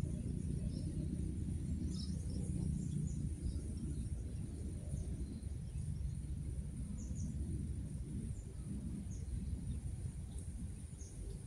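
Outdoor ambience: a steady low rumble under scattered short, high bird chirps and a steady high insect drone.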